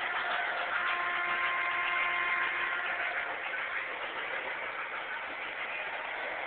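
Model steam locomotive train running along the track: a steady rushing hiss, with a faint steady hum for a couple of seconds in the first half.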